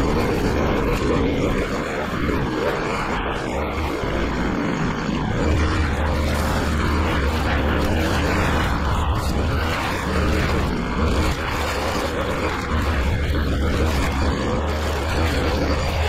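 Petrol-engined grounds-maintenance machine running steadily, with a deep drone that strengthens about five seconds in.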